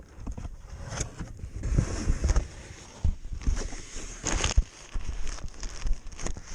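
A package being opened and its packing handled: irregular rustling with scattered clicks and low thumps.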